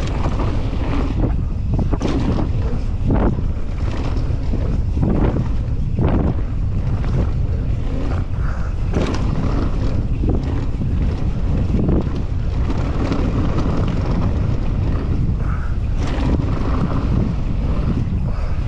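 Wind buffeting the microphone of a helmet-mounted camera as a downhill mountain bike rides down a dirt bike-park trail, a steady low rumble with frequent knocks and rattles from the bike over rough ground.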